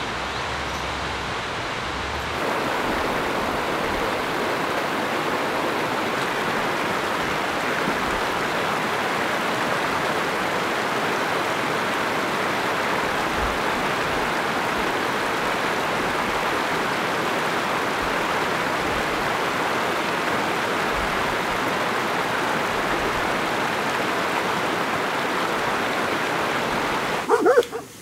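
Rushing water of a mountain stream tumbling over rocks, a steady hiss that gets a little louder about two seconds in.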